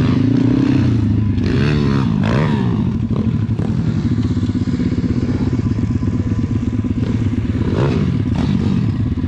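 SSR pitbike's small single-cylinder four-stroke engine running steadily as it is ridden on a dirt track, revving up and down around a couple of seconds in and again near the end. A second pitbike's engine can be heard ahead at the same time.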